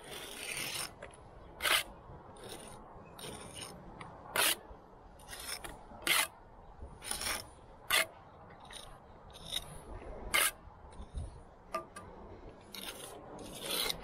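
Steel jointer and trowel scraping wet mortar off the trowel and into brick joints during pointing: a run of short, sharp scrapes, about one or two a second.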